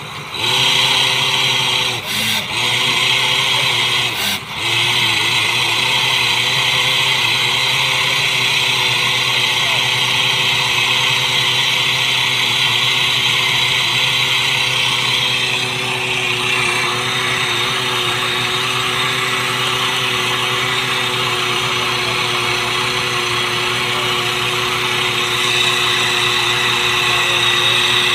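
Tube-well drilling rig running steadily, its engine drone mixed with a strong hiss, with two short dips in level in the first few seconds.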